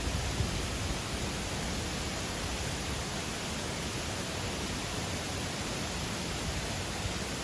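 Waterfall: a steady, unbroken rush of falling water with a low rumble beneath it.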